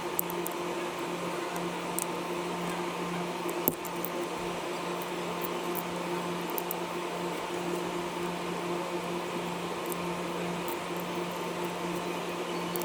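A steady electrical or machine hum, with small sharp clicks and ticks scattered through it and a sharper click about four seconds in.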